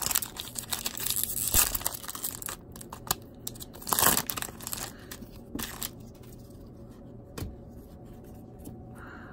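Foil wrapper of a baseball card pack crinkling and tearing open. It is loudest in the first two seconds and again in a burst about four seconds in, then gives way to a few soft clicks as the cards are pulled out and handled.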